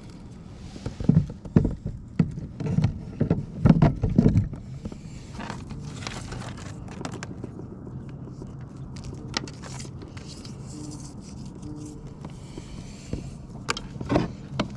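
Knocks, bumps and scrapes of gear being handled against a kayak hull: a cluster of loud knocks in the first few seconds, then a steady low hum with a few scattered clicks, and more knocks near the end.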